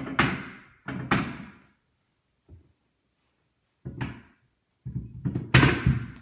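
Dumbbells being set down onto a metal dumbbell rack: sharp clanks with a short ring. There are single clanks near the start and about a second in, another at about four seconds, and a quick run of them near the end.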